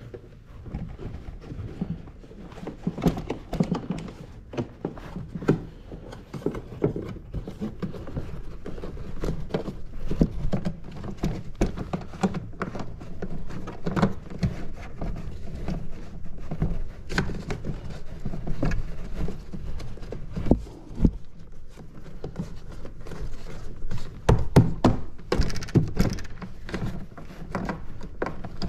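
Irregular dull thunks and rubbing as a rubber edge seal is pressed by hand back onto the plastic rim of a jet ski's storage compartment opening.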